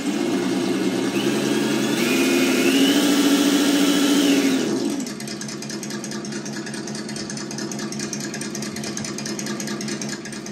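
ESS Dual Plus engine-sound simulator playing a simulated crawler engine through its speaker. It revs higher as the throttle is worked for about the first five seconds, then drops back to a steady idle.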